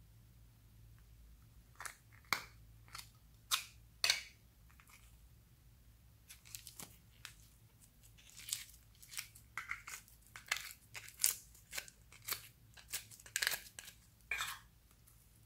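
Pink fluffy slime being squeezed and peeled out of a plastic toy pizza-slice mold by hand: short sticky crackles and pops at irregular intervals, a few at first and many close together in the second half.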